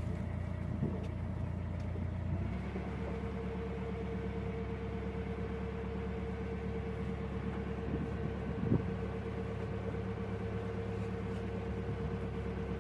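Narrowboat's diesel engine running steadily at low revs: a low hum, joined by a steady higher whine about two and a half seconds in. A single short knock sounds near the end of the second third.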